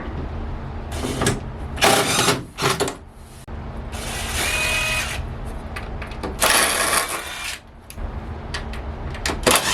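Power drill run in a series of short and longer spurts, backing long screws out of wood, over a steady low hum.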